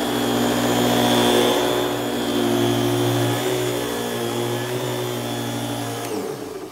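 Eureka Express canister vacuum with its powerhead running steadily, then switched off about six seconds in, its pitch falling as the motors wind down.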